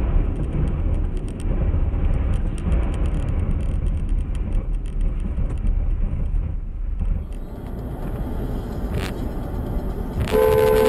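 Steady low road and engine rumble heard from inside a moving car through a dashcam. Near the end a vehicle horn sounds for about a second, just after a single sharp knock.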